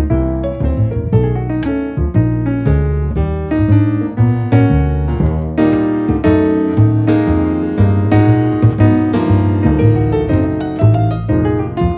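Background piano music: a continuous run of piano notes over a changing low bass line.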